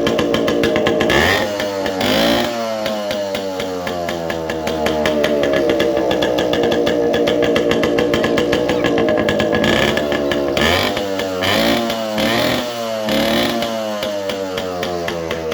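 Yamaha RX-series two-stroke single-cylinder motorcycle engine running steadily, its throttle blipped so the revs jump up and fall back, twice about a second in and several times in quick succession in the second half.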